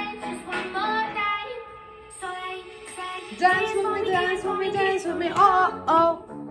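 A song with a high female singing voice over backing music; the music gets louder about three and a half seconds in.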